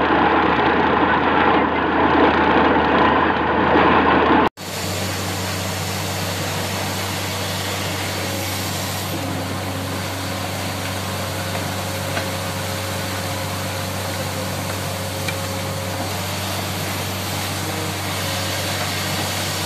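Borewell drilling rig running steadily, its engine droning while water and slurry are blown up out of the bore, a sign the bore has struck water. About four and a half seconds in, an abrupt cut changes the sound from a louder, denser rush to a steadier, quieter engine drone.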